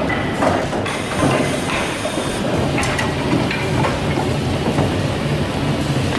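Heavy machinery running with a steady rumble and irregular clattering knocks, typical of wood pieces being handled and dropped in a processing machine.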